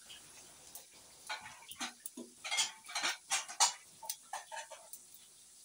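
Spatula scraping and knocking against a frying pan while dried venison is stir-fried in oil, a quick run of short scrapes and taps over a low sizzle.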